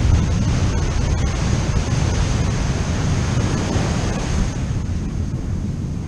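Wind buffeting the microphone in gusts, over the steady wash of ocean surf.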